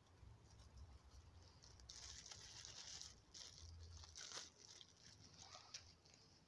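Faint crinkling of a clear plastic bag being handled, with a burst of rustling crackle from about two seconds in and a few sharp crackles after it.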